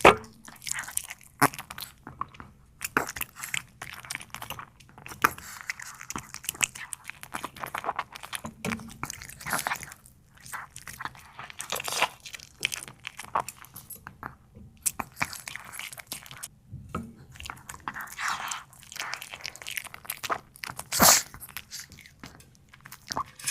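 A dog chewing and eating food, a steady run of irregular crunching chews and bites, with a louder crunch at the start and another near the end.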